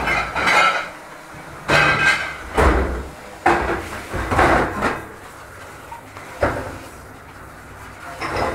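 Dish-pit clatter in a commercial kitchen: a plastic dish rack and a hood-type dishwasher banging against stainless steel, with ceramic ramekins knocking, about six separate clatters in the first six and a half seconds. Near the end it goes quieter, with the pre-rinse spray running into the steel sink.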